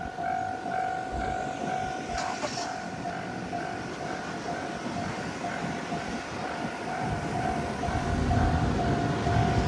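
Japanese railroad crossing warning bell ringing its steady, evenly repeated dings. From about seven seconds in, the low rumble of an approaching train builds and grows louder.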